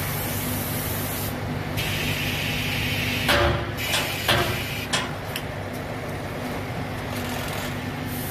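Automatic bag-closing and labelling machine on a packing line running with a steady mechanical hum. About two seconds in, a hiss of air starts, followed by four sharp pneumatic clacks over the next few seconds as the bag mouth is folded, labelled and closed at the sewing head.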